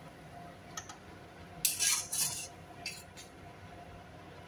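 A few short metallic clinks of kitchen utensils against pots or dishes, the loudest cluster about two seconds in.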